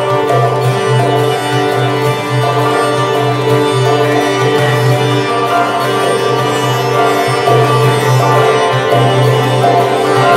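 Sitar playing a slow melody over a steady low drone, with a koto played alongside.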